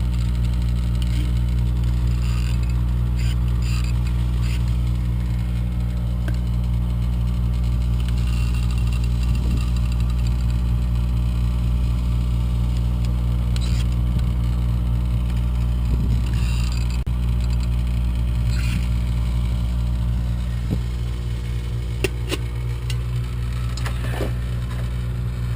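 A steady low machine hum, like an idling engine, with scattered light clicks and taps from hand work with a silicone tube at the outlet.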